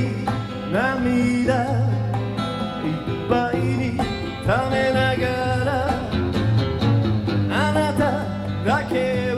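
Live acoustic guitar duo playing, plucked strings with several notes that slide up and then hold, as recorded on an old cassette tape.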